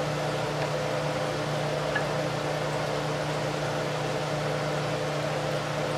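Steady hum with a hiss, like a running fan motor, and a faint tick about two seconds in.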